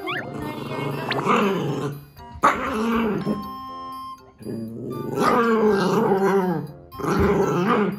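A Shiba Inu puppy and an adult black Shiba growling and giving growly barks at each other in four bouts, the puppy copying the older dog's threatening growl.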